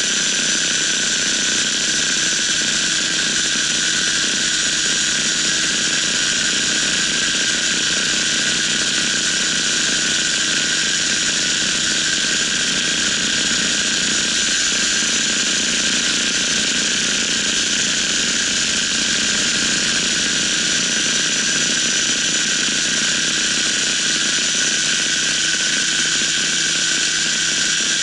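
Tandem paramotor's engine and pusher propeller running steadily in flight, a loud, even drone that does not change in pitch or level.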